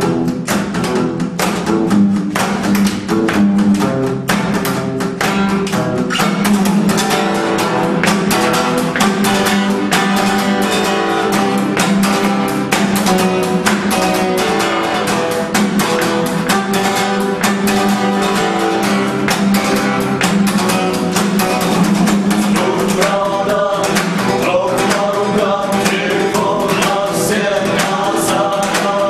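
Music: a song with guitar over a steady, quick beat, with a voice singing in the last few seconds.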